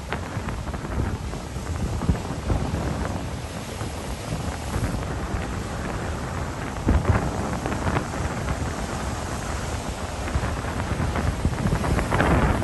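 Wind buffeting the microphone: an uneven, gusting rumble with no steady tone.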